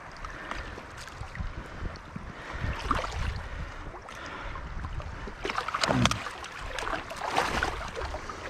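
Hands splashing and sloshing in shallow river water while pulling sticks out of a log jam, with sticks knocking and the river running; the splashing grows busier about three seconds in and again in the second half.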